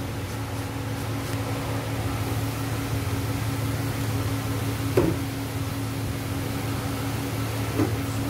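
Steady machine hum with a low drone, with two short knocks about five seconds in and again near the end.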